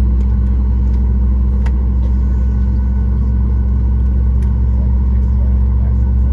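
Steady low rumble and hum inside the cabin of a Boeing 737 MAX 8 taxiing, its CFM LEAP-1B engines at taxi power. A couple of faint clicks sound over it.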